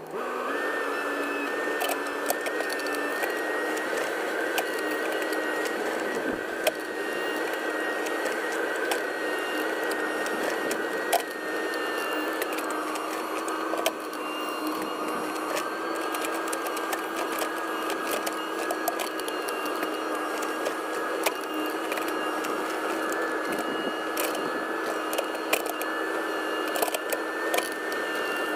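Case 580 Super N backhoe loader's diesel engine and hydraulics running steadily with a high whine. The whine drops in pitch a little after halfway and rises again a few seconds later, with scattered clicks and knocks throughout.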